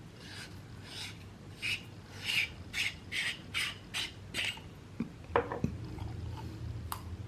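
A flashlight's threaded tail cap being twisted on or off by hand, the threads giving about nine short strokes at roughly two a second. A few sharp knocks follow about five seconds in.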